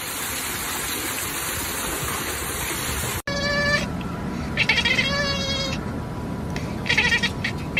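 Water rushing steadily down shallow fountain steps. After a sudden cut about three seconds in, a Siamese-type cat meows in several drawn-out calls, the last few short and choppy.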